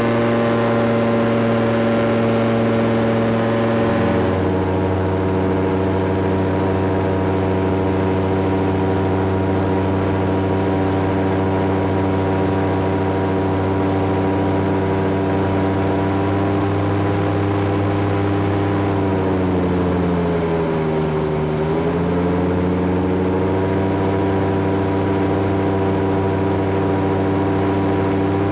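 SeaRey amphibian's engine and pusher propeller droning steadily, heard from inside the cockpit. About four seconds in, the engine note steps down to a lower pitch. About twenty seconds in it sags lower for a couple of seconds and then comes back up.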